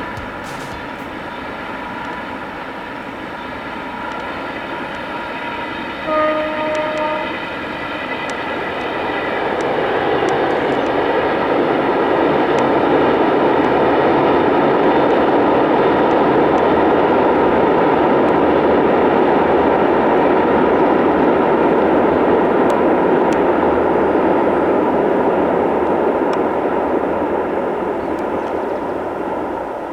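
A train horn sounds once, briefly, about six seconds in. Then the passing test train, led by electric locomotive E-269-01, rumbles by, swelling to its loudest through the middle and fading near the end.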